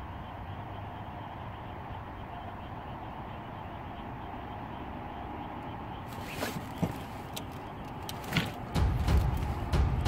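Steady low outdoor background noise, then a few sharp clicks and knocks from about six seconds in, and background music with heavy low drum beats coming in near the end.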